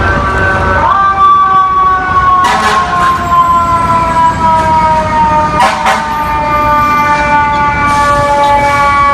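Fire truck's mechanical siren, the Federal Q type, revved up quickly about a second in and then winding slowly down in pitch. There are a few short sharp noises around two and a half and six seconds in.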